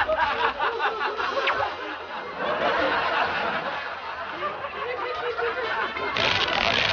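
Several people laughing and chuckling, a scattered mix of many short laughs throughout.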